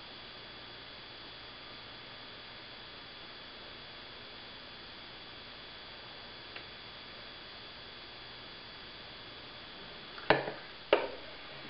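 Steady low room hiss with a faint high steady whine while the soldering goes on without sound. About ten seconds in, two sharp knocks a little over half a second apart, handling knocks as the circuit board is taken from the bench vise.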